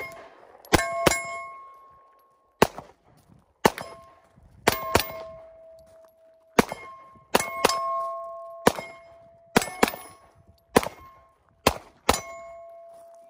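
Pistol shots fired singly and in quick pairs, about fifteen in all, many followed by the clear ringing of hit steel targets that dies away over a second or so.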